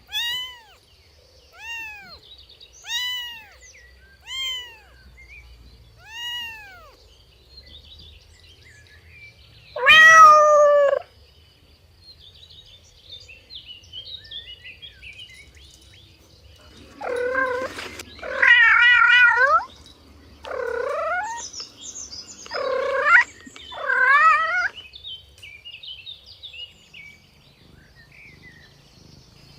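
Cats meowing: a string of short meows about every second and a half, one loud drawn-out meow about ten seconds in, then a run of longer, wavering meows later on. Faint high chirping runs in the background.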